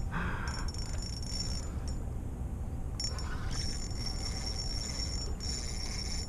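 Fishing reel cranked in two spells, a high gear whine with a rasping under it, as a hooked pink salmon is worked toward the net, over a steady low rumble.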